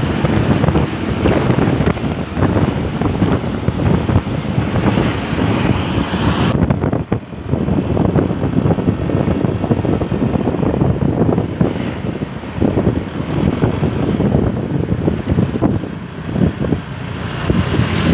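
Road vehicle running at speed with heavy wind buffeting on the microphone. No horn is heard. About six and a half seconds in, the sound changes abruptly and loses most of its hiss.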